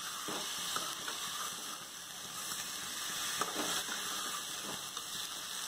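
Quail pieces sizzling in hot oil with garlic paste in a metal kadai while being stirred, a steady quiet hiss with a few scrapes of the ladle against the pan.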